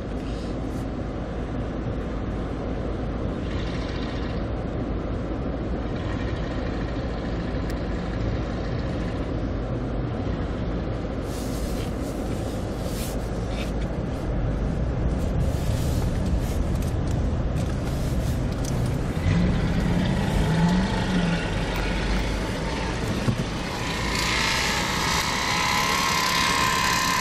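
Off-road 4x4 vehicle engines running, louder from about halfway through, with an engine revving up and down twice around two-thirds of the way in. A loud hissing noise with a whine in it comes in near the end.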